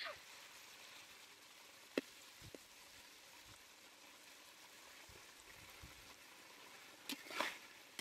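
Faint steady sizzle of food frying in hot oil, with a sharp pop about two seconds in and a short run of crackling pops near the end.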